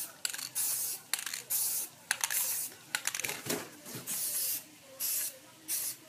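Aerosol spray-paint can hissing in a series of short bursts, each under half a second. In the middle, sharp metallic clicks and rattles come from the can and its mixing ball.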